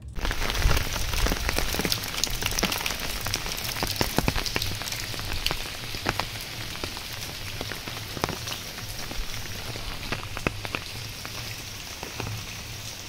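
Rain falling, with many separate drops ticking sharply close by; a little louder in the first couple of seconds.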